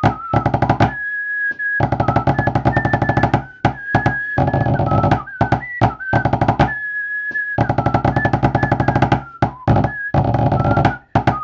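Pipe-band drumming on a tabletop practice board with wooden drumsticks: a 6/8 march of rapid strokes and rolls, in phrases with short breaks, stopping near the end. A thin single-line melody of the tune sounds along with it.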